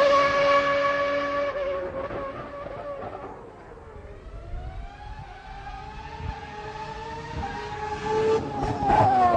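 Old V12 Formula One engine at high revs, its high whine dropping in pitch and fading away over about three seconds. A rising engine note then grows louder as a car approaches, and it is loud again with revving near the end.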